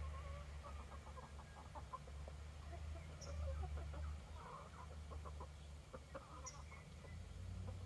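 Free-range chickens clucking, a loose run of short clucks from several birds that thins out near the end, over a steady low rumble.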